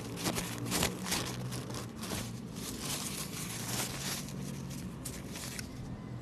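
Close-miked chewing of mochi ice cream: a quick run of soft wet mouth clicks and smacks that thins out about five and a half seconds in.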